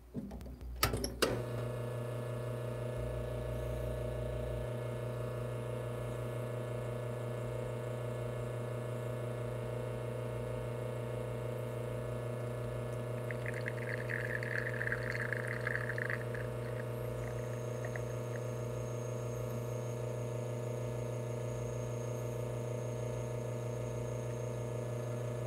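Espresso machine pump humming steadily while pulling a shot through a bottomless portafilter. It switches on about a second in and holds one unchanging tone. Partway through, a brief soft trickle is heard as the espresso starts to flow.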